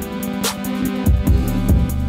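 Instrumental background music with guitar and a steady drum beat.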